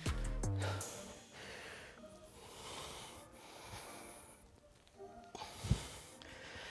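A person breathing hard from exertion during high-intensity exercise, in a run of forceful exhales. A single thump about two-thirds of the way through is the loudest moment.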